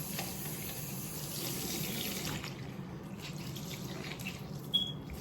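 Bathroom sink tap running, its hiss cutting off a little over two seconds in, followed by lighter splashing of water. A brief high chirp sounds near the end, over a steady low hum.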